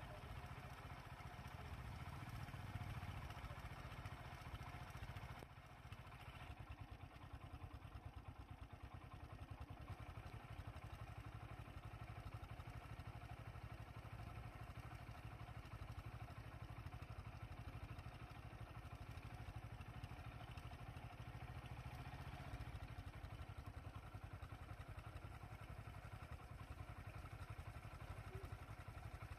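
Faint, steady low rumble of a vehicle engine idling.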